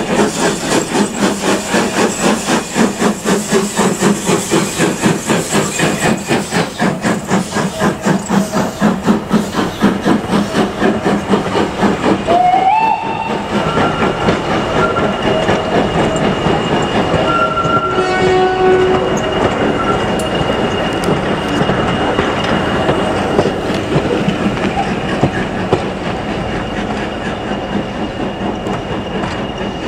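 Midland 4F 0-6-0 steam locomotive pulling away with a passenger train, its chimney exhaust beating fast and evenly. Then the carriages roll past on the rails with a steadier rumble, a brief rising tone about halfway and a thin high tone over the rolling noise.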